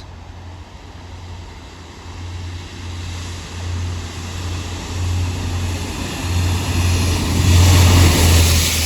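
Network Rail Multi-Purpose Vehicle (MPV) on rail-head treatment duty approaching along the track, its diesel engine rumble and wheel noise building steadily and loudest near the end as it draws level.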